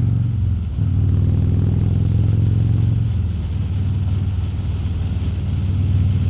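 Harley-Davidson Road King Special's V-twin engine running steadily at highway speed, with a brief dip in the engine note just under a second in. Wind rushes past a microphone inside the rider's helmet.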